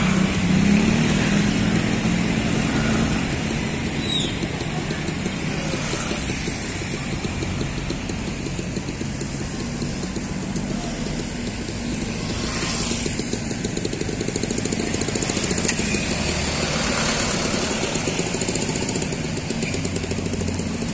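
Street traffic: cars and motorcycles passing on the road, engines running and tyres on the tarmac. An engine hum is strongest in the first few seconds as a car and motorcycle go by close, and other vehicles swell past every few seconds after that.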